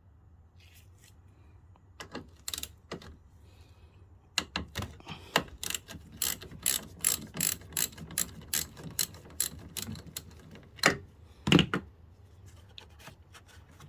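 Ratchet wrench loosening the 10 mm nut on a car battery's negative terminal clamp: repeated sharp ratchet clicks, about three a second, with a couple of louder knocks near the end.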